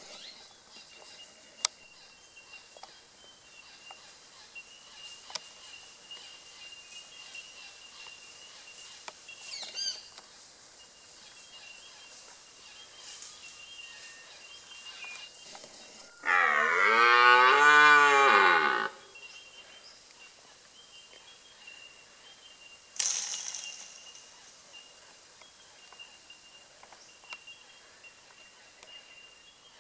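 Young red deer stag giving one rutting roar, a single drawn-out call about two and a half seconds long with a wavering pitch, some sixteen seconds in.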